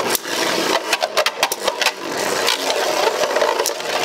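Two Beyblade Burst tops spinning in a plastic Beyblade stadium: a steady whirring grind of their tips on the stadium floor, broken by many sharp clacks as the tops strike.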